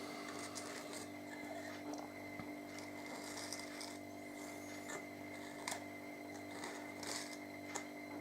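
Scattered faint clicks and light scratchy handling sounds, from a person drawing up solvent, over a steady electrical hum.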